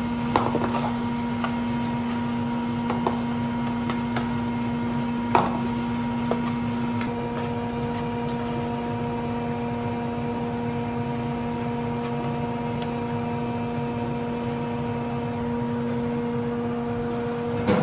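Steady machinery hum with a few fixed tones over a low drone, as in a ship's galley. Scattered short clinks and knocks of cookware and utensils come through it, the loudest about five seconds in.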